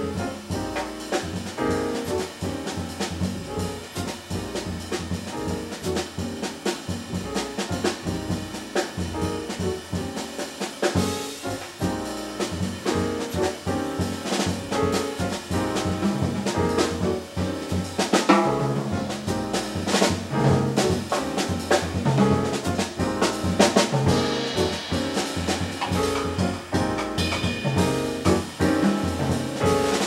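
Jazz piano trio playing: grand piano, upright double bass and a Gretsch drum kit with cymbals, getting a little louder in the second half.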